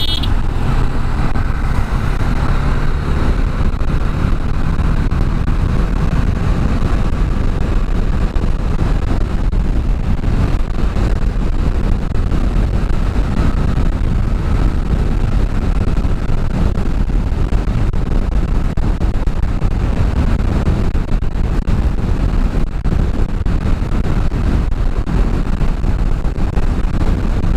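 Bajaj Dominar 400's single-cylinder engine running steadily at cruising speed, mixed with heavy wind rush on the rider's microphone.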